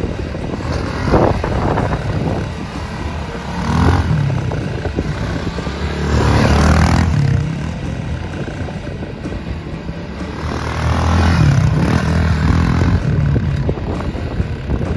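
Small four-stroke single engine of a Honda CRF110 dirt bike being ridden, its revs rising and falling in several surges as the rider throttles on and off.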